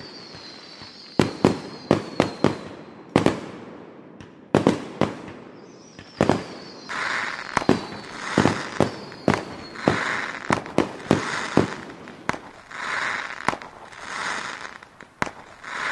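Fireworks going off: a string of sharp bangs, with two high whistles that fall slightly in pitch, near the start and about six seconds in. From about seven seconds in, short hissing noises come between the bangs.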